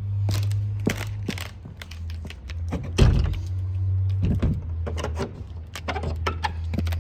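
A series of knocks and clicks with one loud thunk about three seconds in, over a low steady hum.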